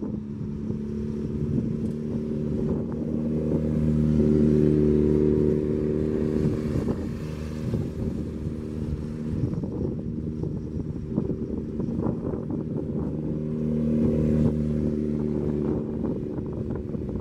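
Motorcycle engine running at low, fairly steady revs during slow, tight-turn riding. It swells louder twice, about four seconds in and again near the end.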